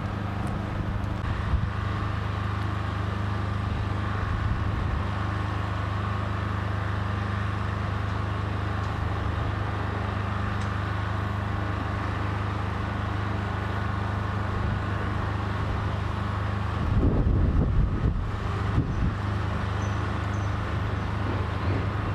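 Large diesel lorry engine idling steadily, a constant low hum, with wind buffeting the microphone briefly about seventeen seconds in.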